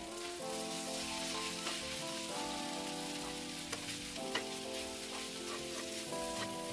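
Chicken and sliced bell peppers sizzling in a non-stick frying pan while a metal spoon stirs them, with a few sharp taps of the spoon on the pan, over background music.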